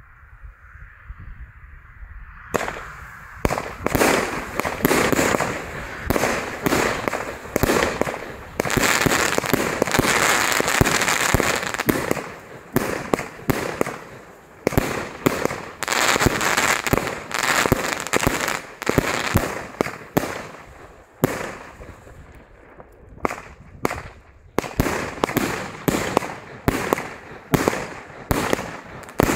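Superior Fireworks Elite compound firework battery (100 shots from 30 mm tubes) firing. From about two and a half seconds in, a dense, rapid run of launch shots and bursting shells follows, with a few short lulls.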